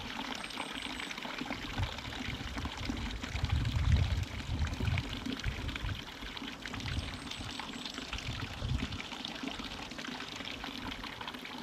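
Wind buffeting a camera microphone in irregular low gusts over a steady rushing hiss, the gusts strongest a few seconds in.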